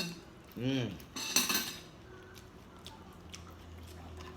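Cutlery on a plate during a meal: a loud, noisy rasp about a second and a half in, then a few light clicks. A short hummed vocal sound comes just before the rasp.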